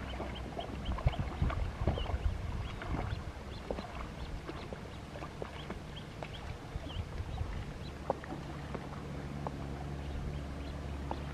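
A dog wading and splashing through shallow river water, then pushing out through grass onto the bank. The splashing is busiest in the first few seconds and settles later, with short high chirps scattered throughout.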